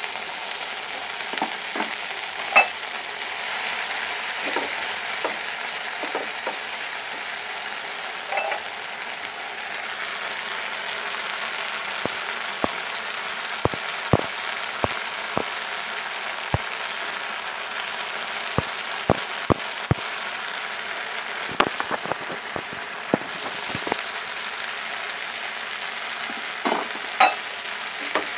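Onions and mustard paste frying in hot oil in a non-stick pan, a steady sizzle, while a spatula stirs them, with scattered sharp clicks throughout.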